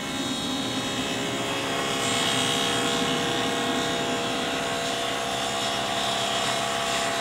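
Table saw with a 3/4-inch stacked dado blade cutting a wide, deep dado in dense oak fed slowly along the fence: a steady running whine that grows louder and brighter about two seconds in and then holds.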